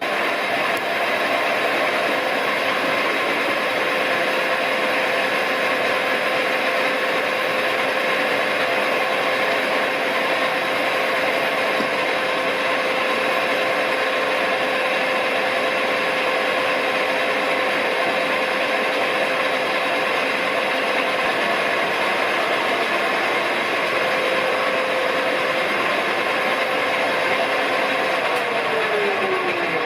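Smart & Brown Model A lathe running steadily, turning a light finishing cut off a brass spigot to ease a tight fit. Near the end the motor is switched off and its whine falls as it spins down.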